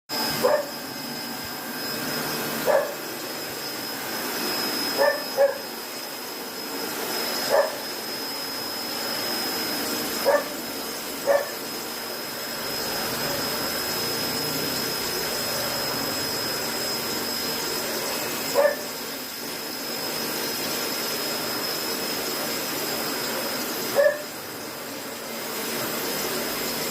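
A dog barking in short single barks, about nine times, spaced irregularly over a steady machine hiss that carries a thin high whine.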